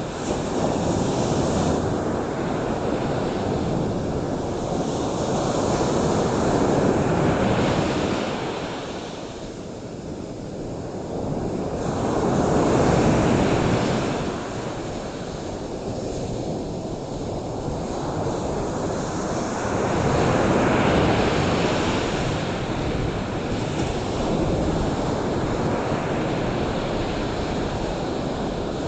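Ocean surf: waves breaking and washing in, the rush swelling and falling away in slow surges about every seven or eight seconds.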